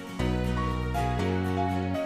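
Instrumental background music, with held chords that change about once a second.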